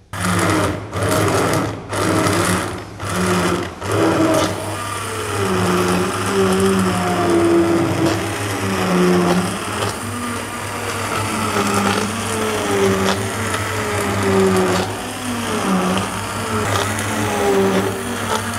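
Electric hand blender pureeing cooked tomatoes and stock in a steel pan for cream of tomato soup. It starts in a few short pulses, about one a second, then runs continuously with its pitch rising and falling.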